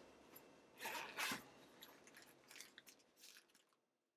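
Faint rustling and a few soft clicks as a person shifts and moves about.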